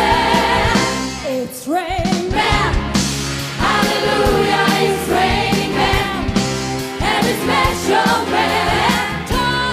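A live disco-pop song: a woman's solo lead vocal over drums, bass and keyboards, with a choir singing behind her. The bass drops out briefly about a second and a half in.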